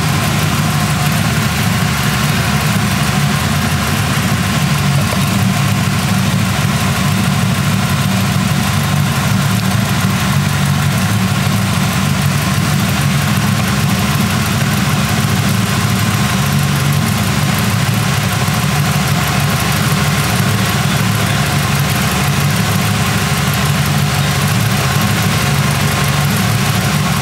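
The engine of a 1940 Ford Tudor, fed by a Holley carburetor, idling steadily and loud while its idle-mixture screws are tuned for the highest vacuum reading.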